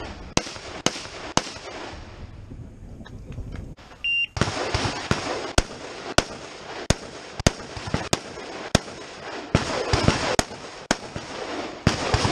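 Rifle shots in a practical shooting stage: three sharp shots about half a second apart, a pause, then a short electronic shot-timer beep about four seconds in. A steady string of a dozen or so shots follows, spaced roughly half a second to a second apart.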